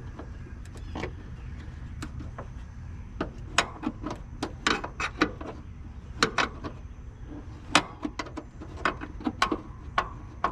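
Irregular clicks and knocks of hand work on a car's plastic running-light housing and its screws, which turn without backing out because the plastic threads are stripped.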